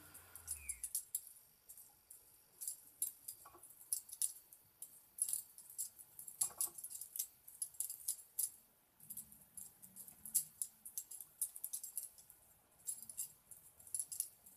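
Butterfly knife being flipped: its metal handles clack and rattle against each other and the blade in quick, irregular clusters of sharp clicks.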